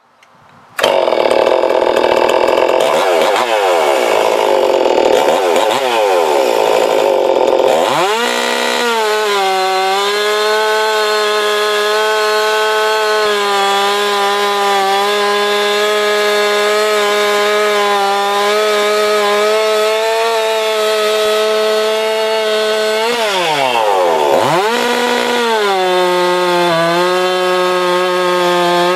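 Ported, timing-advanced Stihl MS 261 C two-stroke chainsaw at full throttle, cutting through a large square timber block. It starts about a second in, runs rough with swinging pitch for the first several seconds, then holds a steady high pitch in the cut; about 24 s in the pitch drops sharply and climbs back.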